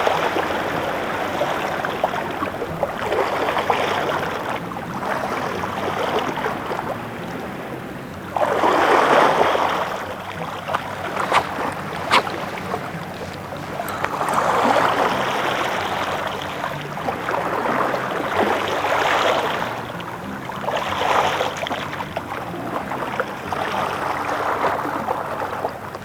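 Seawater washing against the shore, a steady hiss that swells into louder surges every few seconds, with a few faint short clicks near the middle.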